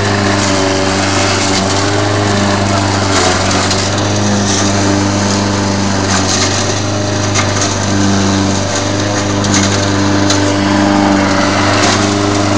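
Lawn mower engine running steadily while its blade chews into a bush, with scattered cracks and snaps of branches and twigs throughout.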